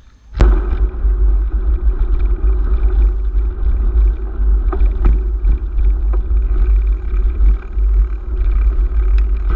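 Wind buffeting the microphone of a handlebar-mounted action camera on a moving mountain bike. It is a loud, steady low rumble that starts suddenly about half a second in, with scattered knocks and rattles from the bike.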